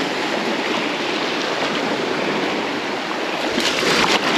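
Small waves washing steadily at the shore, with a louder wash of water between about three and a half and four seconds in.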